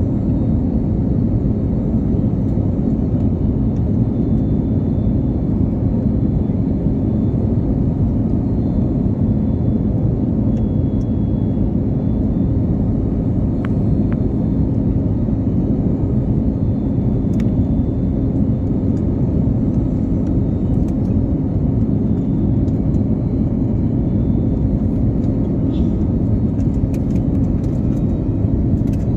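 Jet airliner's steady cabin drone of engines and airflow, a loud even rumble with a constant hum running through it and a few faint ticks.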